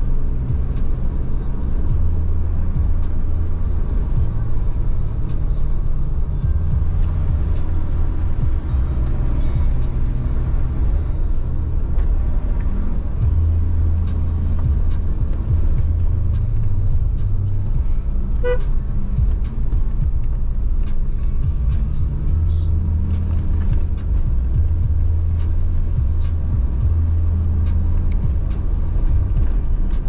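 A car being driven, with a steady low engine and road rumble. A brief tooting tone sounds once, about eighteen seconds in.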